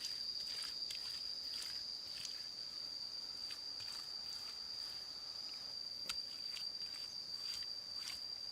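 Jungle insects droning on one steady high pitch, with scattered short rustles and light clicks around it.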